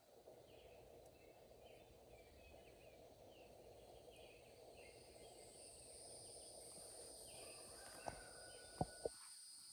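Near silence: faint outdoor ambience of distant bird chirps and a steady high hum, with a few soft knocks about eight to nine seconds in.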